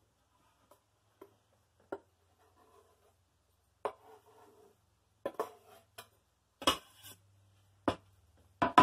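Kitchen knife and wooden cutting board knocking and scraping as diced jalapeno is pushed off the board into a bowl: a string of sharp, separate knocks that get louder toward the end, with soft scraping between them.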